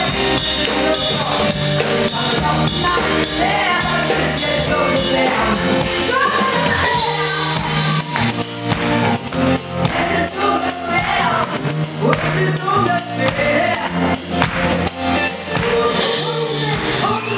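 Live band music with a woman singing lead into a handheld microphone, backed by drums and acoustic and electric guitars.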